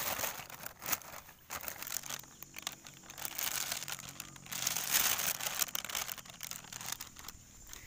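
Clear plastic bag crinkling irregularly as it is handled and held up, with live eels moving inside it.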